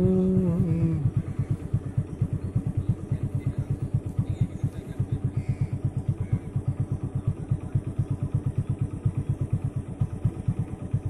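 A motorcycle engine idling with a steady, even putt of about seven beats a second. A sung line ends about a second in.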